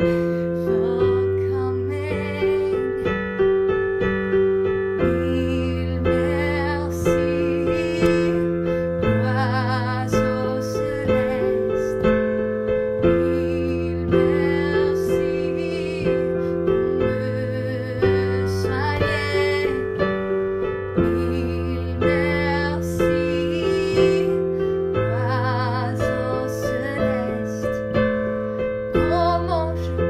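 Electric piano playing a slow, gentle song in steady chords that change every second or two, with a woman's singing voice wavering over them at times.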